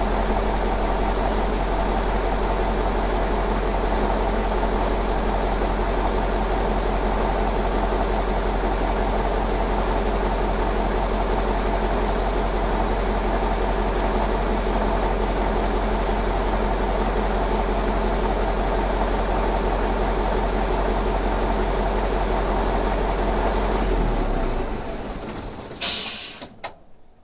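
Diesel car engine idling steadily, then shutting off about 24 seconds in. Shortly after, a brief loud burst of noise and a couple of clicks.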